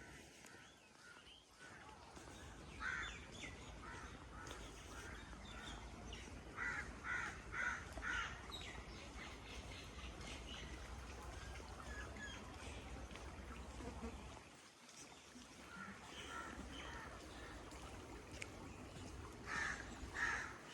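Birds calling in a few short runs of quick repeated calls, about four a second at the busiest, over a steady low rumble.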